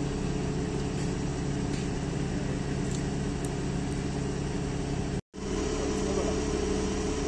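Large diesel forklift with a tyre-handler attachment idling steadily, a low even engine hum. It cuts out suddenly for a moment about five seconds in, then the idle carries on.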